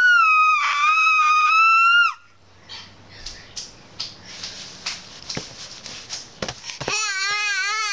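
A baby squealing: one long, high-pitched squeal that rises at the start and holds for about two seconds. Then a stretch of faint clicks and rustles, and near the end a wavering, warbling vocal sound whose pitch goes up and down.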